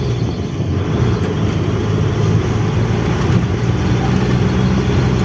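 Truck's diesel engine running steadily on the road, with a constant low drone and road noise.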